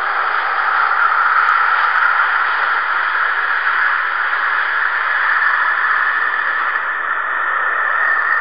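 Airliner's jet engines at takeoff thrust during the takeoff roll and lift-off: a loud, steady rushing noise with little bass, easing slightly near the end.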